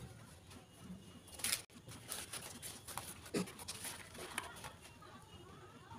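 Fresh banana leaves rustling and crinkling as hands pull them apart and smooth one flat, in short bursts with a few light taps; the loudest burst comes about a second and a half in.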